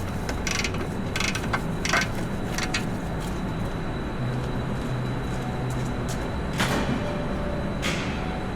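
A wrench being worked on the clutch pressure-plate bolts, ratcheting in a few short, sharp strokes, then two more metallic clicks near the end, over a steady background hum. The bolts are being brought up to 30 lb-ft.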